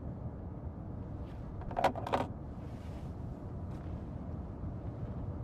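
Steady low rumble of a car cabin, with two short, sharp clicks about two seconds in.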